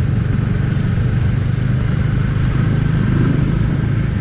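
Bajaj Dominar 400's single-cylinder engine running steadily, its cylinder head assembly newly replaced, with no shim ticking, which the owner calls quiet and noise-free.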